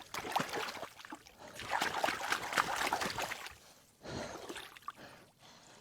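Water splashing and trickling as hands grapple a rice-field eel out of its hole in shallow, muddy pond water. There is a busier stretch of splashing in the middle and a softer splash near the end.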